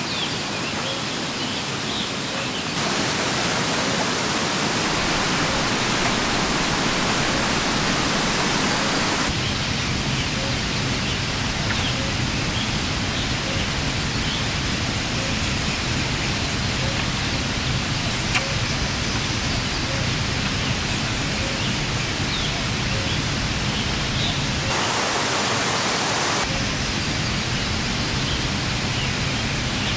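Steady rushing outdoor noise, an even hiss across all pitches, that changes in tone abruptly a few seconds in, about a third of the way through, and twice near the end, with faint short high chirps scattered through it.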